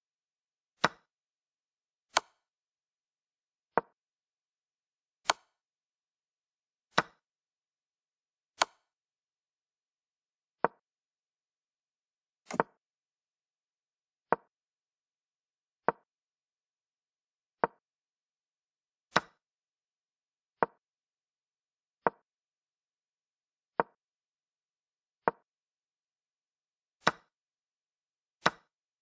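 Chess board software's move sound effect: a short click each time a piece is moved, about one every one and a half to two seconds, eighteen in all. A few of the clicks are sharper and brighter than the rest.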